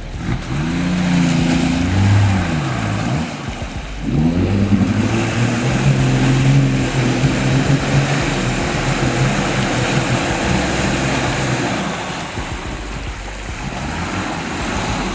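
Toyota 80 Series LandCruiser's 1HZ diesel engine revving hard, its pitch rising and falling in the first few seconds, then held high and steady before easing off near the end.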